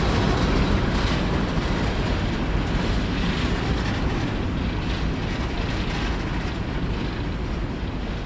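Empty coal train's hopper cars rolling past, a steady rumble with wheel clacks every second or so that slowly fades.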